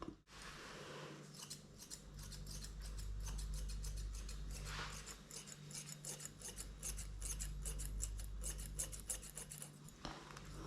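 Grooming scissors snipping quickly through a cat's fur: a long run of crisp snips, starting about a second in, over a low steady hum.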